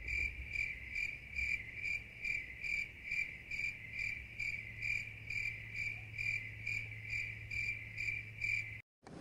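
Crickets chirping in a steady, even rhythm of about two chirps a second over a low hum, cutting off abruptly near the end: a cricket sound effect laid over the scene.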